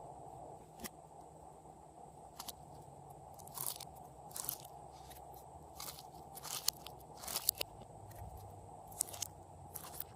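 Glossy slime being squeezed and kneaded by hand, giving irregular short clicky pops and crackles over a steady low hum.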